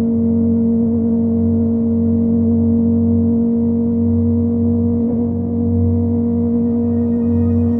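Kawasaki ZX25R's 250 cc inline-four with a Yoshimura exhaust, cruising at steady revs as a constant, even drone.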